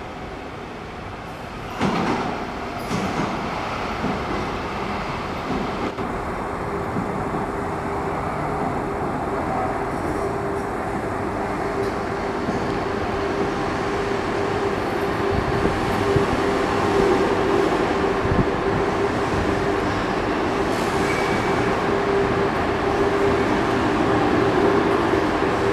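Siemens-Duewag U2 light rail train pulling into a station platform, its wheels rumbling on the track under a steady whine, getting slowly louder as it comes alongside. A sharp knock about two seconds in.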